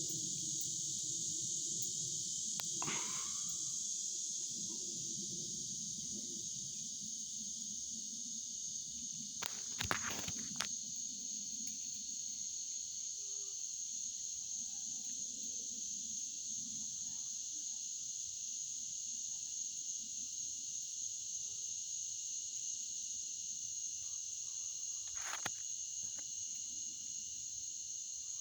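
A steady, high-pitched chorus of insects fills the woods. There is low rustling in the first few seconds, and a few short sharp clicks or snaps come about ten seconds in and again near the end.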